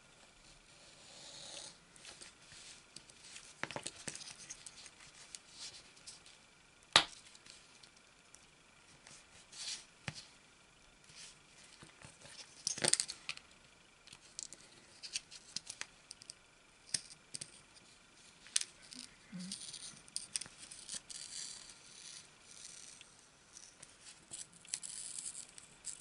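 Thin metal opening tool scraping and clicking against the edge of an iPod Nano 6th generation's case as the heat-softened, glued-down screen is pried up. Scattered small clicks and scrapes, with one sharp click about seven seconds in and a cluster of them around thirteen seconds.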